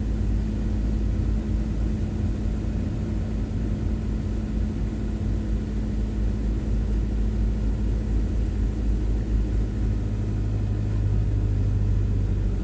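Car engine and road rumble heard from inside the cabin of a moving car, a steady low rumble with a hum. About ten seconds in, the hum drops to a lower note.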